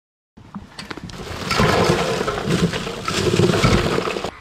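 Bagged ice tipped into a plastic cooler: a rattling, crunching rush of ice cubes falling onto the packed food, building for a few seconds and stopping suddenly near the end.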